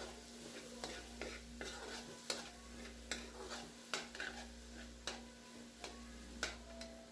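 A metal spatula scraping and clinking against a wok as shrimp, pork and scrambled egg are stir-fried. The sharp clinks come irregularly, about one or two a second, over a steady low hum.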